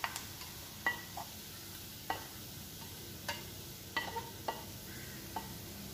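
Hot coconut oil in a steel pan, left over from frying, giving a faint sizzle with a few sharp clicks at irregular intervals.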